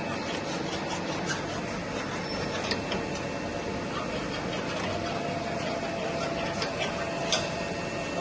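Cylindrical grinding machine running: a steady mechanical hiss and hum with scattered light clicks, and a faint steady tone setting in about halfway through.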